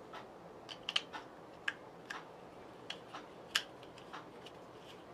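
Screw on a plastic GoPro mount being tightened by hand: a series of small, irregular clicks and ticks, the loudest about three and a half seconds in.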